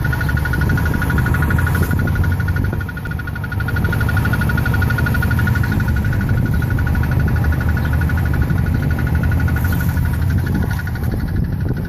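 2006 Chrysler Sebring's 2.4L four-cylinder engine running with a steady, high-pitched rattle from the lower passenger side of the engine bay. The owner takes it for something loose shaking, brought on by heavy engine and transmission torque and more obvious when cold, and finds it unlike an engine mount or belt problem.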